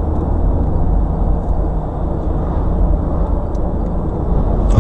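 Steady low rumble of tyre and engine noise inside a moving car's cabin.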